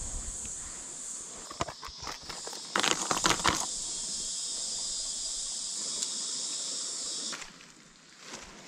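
Steady, high-pitched drone of insects in the bush, which cuts off suddenly near the end. A couple of seconds in, a short run of rustling and clicking comes from fishing line and a lure being handled close by.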